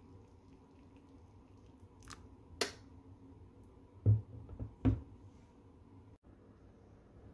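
Kitchen handling noises at the stove: a light click and a sharper click, then three dull knocks a little after halfway, the loudest sounds here, over a faint steady hum.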